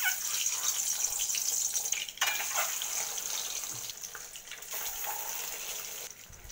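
Turmeric-rubbed hard-boiled eggs frying in hot refined vegetable oil in a kadai: a sudden hiss and steady crackling sizzle as they go into the oil, briefly dipping about two seconds in.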